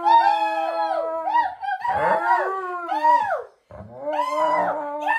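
Alaskan Malamute howling and 'talking' in long, wavering calls that bend up and down in pitch, breaking off briefly about three and a half seconds in before starting again.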